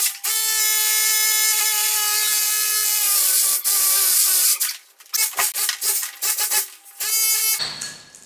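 Electric drill with a long masonry bit boring a large hole through a brick wall: a steady motor whine for the first few seconds, then a run of short on-off bursts of drilling.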